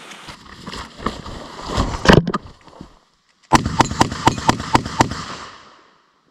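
A semi-automatic pistol fired in a rapid string, about nine shots in under two seconds, starting about three and a half seconds in. Before it, rustling with one strong thump.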